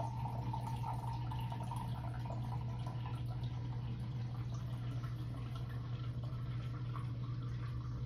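Small laboratory vacuum pump running with a steady low hum under a vacuum coffee-brewing apparatus, with faint trickling and dripping of liquid.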